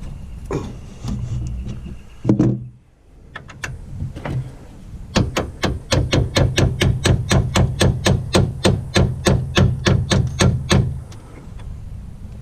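A hammer tapping in a quick, even run of about five blows a second for five or six seconds, after a couple of single knocks, over a steady low hum.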